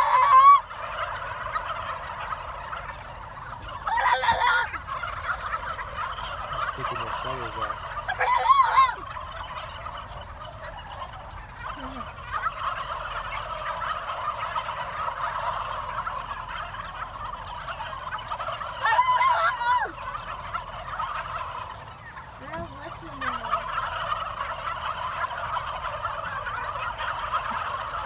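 A large flock of domestic white turkeys calling continuously in a dense chatter, with louder gobbles breaking out four times.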